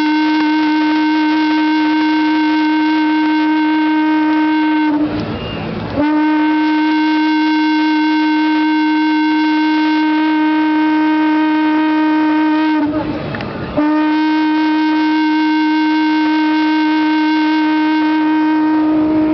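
Conch shell (shankha) blown in long, steady, unwavering blasts, three in all, each broken by a short pause for breath about five and thirteen seconds in.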